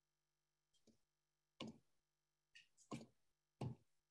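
Faint, sharp clicks of a computer mouse, about five of them at irregular intervals, over near silence.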